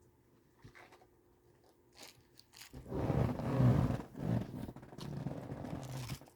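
Close-up chewing and crunching of a bite of hamburger dipped in a sauce with crunchy potato bits. It starts about three seconds in, after a few faint clicks, and lasts about three seconds.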